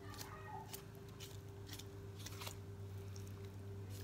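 Knife making little cuts along a raw chicken's breastbone to free the breast meat: a series of short, soft snicks and clicks over a low steady hum.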